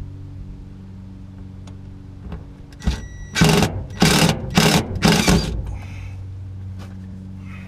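Power drill-driver running in four short bursts about halfway through, driving a screw that does not seat well, over a steady low hum.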